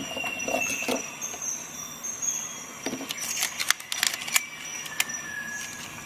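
Handling noise from two Leatherman Charge multi-tools, one with titanium and one with G10 handles: metal and scale clicking and knocking against each other and the fingers as they are shifted and repositioned. There is a brief rustle at the start, then a cluster of sharp clicks a little past the middle.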